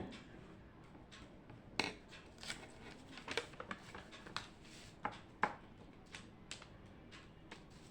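Irregular light taps and clicks of small objects handled at a desk, about a dozen over several seconds. The sharpest come about two seconds in and about five and a half seconds in.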